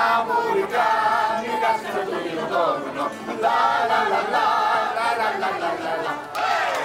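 A group of voices singing a song together to accordion, with sustained notes; clapping breaks out near the end.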